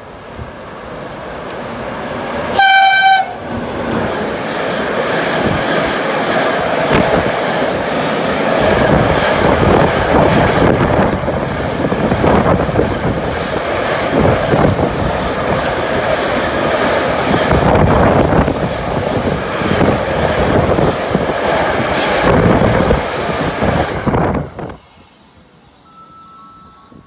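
A freight train of loaded car-carrier wagons approaches and runs through the station at speed. A train horn sounds one short blast about two and a half seconds in. Then the wheels rumble and clack over the rail joints for about twenty seconds, the noise cutting off suddenly as the last wagon passes.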